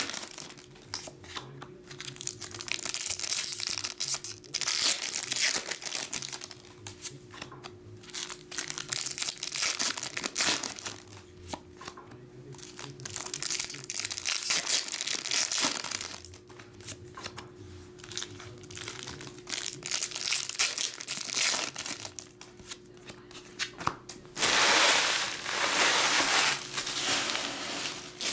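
Foil Pokémon booster pack wrappers crinkling and tearing as packs are ripped open by hand. The sound comes in repeated bursts, loudest a few seconds before the end, over a faint steady hum.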